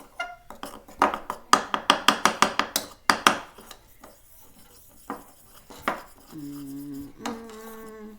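A spoon clinking and scraping against a bowl while stirring thick heated cornstarch, in quick runs of clicks. Two short held tones near the end.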